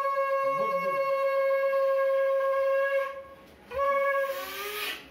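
Conch shell (shankha) blown in welcome of the goddess: a long, steady note breaks off about three seconds in, then a shorter second blast follows that climbs in pitch at its end.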